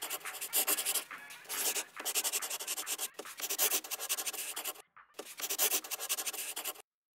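Dry-erase marker writing on a whiteboard: runs of quick, scratchy strokes with brief pauses between words, stopping shortly before the end.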